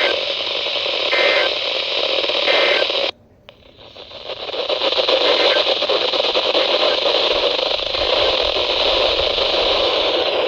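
Static hiss from a weak NOAA Weather Radio signal. Three short, faint two-tone data bursts come through the noise in the first three seconds, in keeping with the SAME end-of-message code that follows a weekly test. The signal cuts out suddenly about three seconds in, and the hiss builds back up a moment later.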